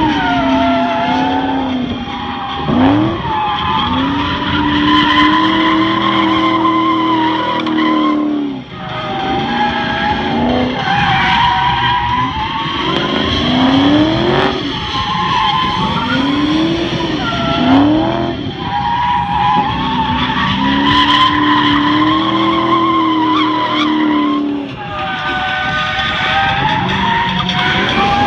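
Holden Commodore VE SS-V's V8 revved hard through a continuous drift, its note rising and falling with the throttle over steady tyre squeal. The engine note drops away briefly twice, about nine seconds in and near the end.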